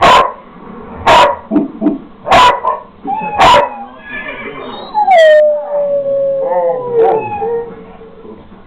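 A dog howling along to an electronic drum kit: four loud drum hits about a second apart, with short howls between them, then one long howl that slowly falls in pitch.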